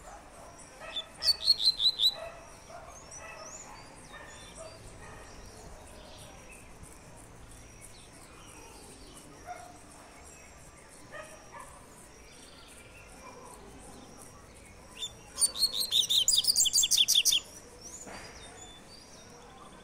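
Caged double-collared seedeater (coleirinho) singing its three-note 'tui-tui' song: a short burst of rapid, repeated high notes about a second in and a longer burst near the end, with faint scattered chirps between.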